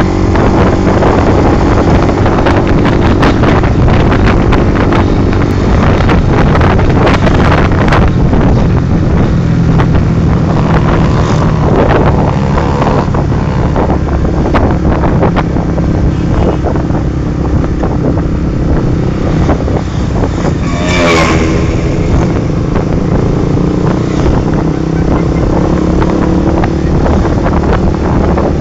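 Honda CBR150 motorcycle engine running steadily under way, its pitch shifting now and then with speed, under heavy wind buffeting on the microphone. A short rising-and-falling pitched sound stands out about three-quarters of the way through.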